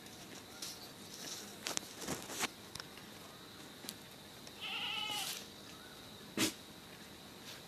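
A goat bleats once about halfway through, a single wavering call lasting under a second. A few sharp knocks are heard before and after it.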